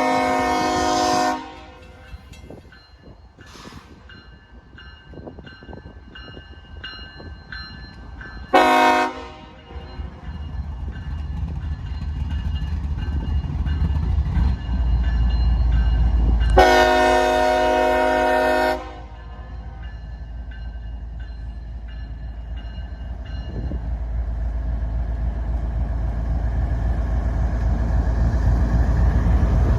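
CSX diesel freight locomotive's air horn sounding for the grade crossing: a long blast ending about a second in, a short blast near nine seconds and a long two-second blast near seventeen seconds. Beneath it the locomotive's engine rumble builds steadily louder as the train approaches the crossing.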